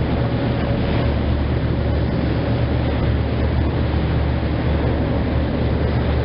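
A boat's engine running with a steady low drone under the rush of foaming water along the hull.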